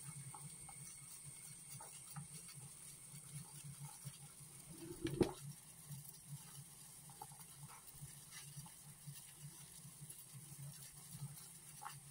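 Water at a rolling boil in a stainless-steel saucepan: faint, irregular bubbling and popping, with one louder knock about five seconds in.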